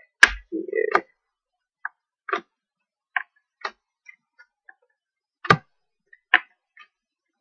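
Match Attax football trading cards being handled: scattered sharp clicks and taps at irregular spacing as cards are flicked through the stack and set down on the table, the loudest about five and a half seconds in.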